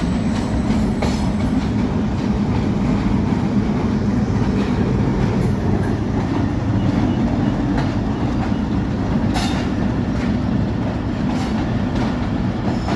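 Pakistan Railways train running along the track: a steady low rumble with a few sharp clacks of the wheels over rail joints.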